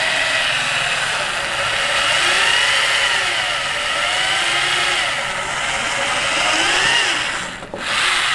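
Hyundai 20 mm SDS Plus rotary hammer running with a twist bit boring into a wooden board. Its motor whine rises and falls in pitch as the load on the bit changes. The sound drops off briefly near the end and then picks up again.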